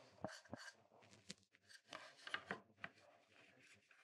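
Faint, short scraping strokes and light clicks of a V-shaped carving gouge cutting into a wooden printing block, with a few light knocks as the block is handled. The gouge is not very sharp, so it bites into the wood unevenly.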